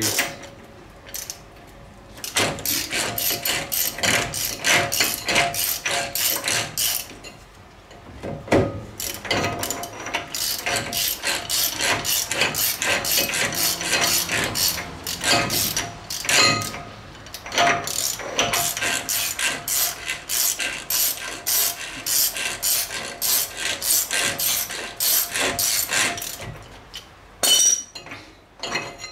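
Hand ratchet wrench clicking in long runs of quick clicks, broken by a few short pauses, as nuts are run off the front wheel spindle of a Ford TTB 4x4 axle.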